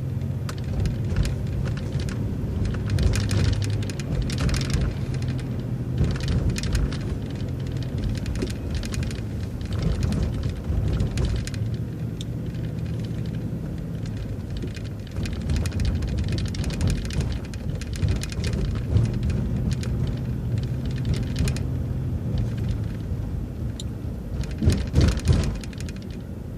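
City transit bus heard from inside the cabin while driving: a steady engine drone that changes pitch now and then, with frequent rattles and knocks from the body and fittings, bunched in several spells and strongest near the end.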